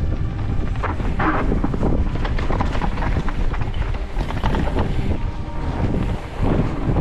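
Heavy wind buffeting the microphone of an action camera: a dense, steady low rumble with short louder bursts about a second in and near the end.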